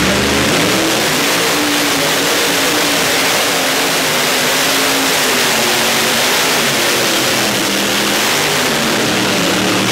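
A two-wheel-drive tractor-pulling machine's racing engine running flat out while it hauls the weight-transfer sled down the track. The sound is a loud, steady roar held at full power for the whole pull.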